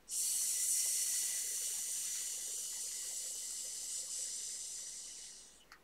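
A woman breathing out one long, sharp "sss" hiss, the Qi Gong healing sound for the lungs, tailing off gradually before it stops.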